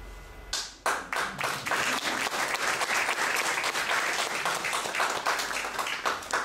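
An audience breaks into applause about half a second in, many hands clapping together.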